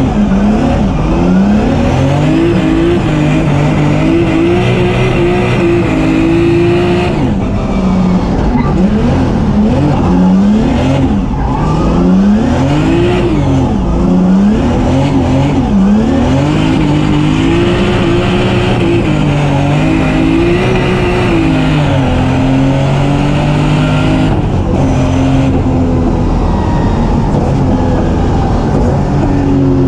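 Turbocharged BMW M3 drift car's engine, heard from inside the cockpit, running hard. Its revs rise and fall over and over, every second or two, as the car is held sideways through the corners.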